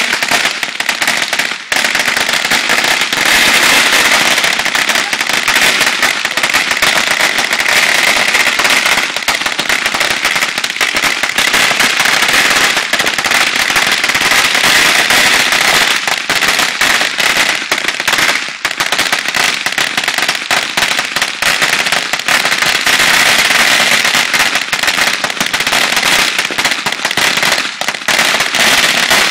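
Firecrackers going off in a loud, dense, continuous rattle of sharp bangs that barely lets up.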